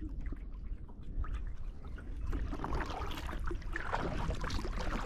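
Water lapping and small irregular splashes close by, over a low rumble.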